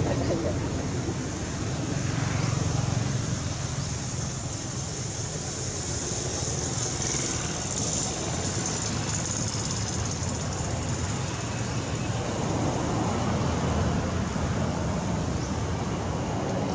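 Steady outdoor background noise: a low rumble with a high hiss, brighter for a few seconds in the middle, and no distinct single event.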